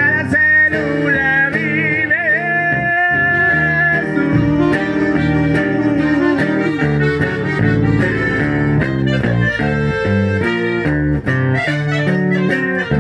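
Norteño instrumental break: button accordion and saxophone play the melody over strummed bajo sexto, with a wavering vibrato on the held lead notes in the first few seconds and sharp strummed chords near the end.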